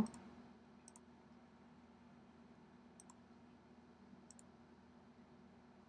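A handful of faint, sharp computer mouse clicks spaced irregularly over a few seconds, over a low steady hum.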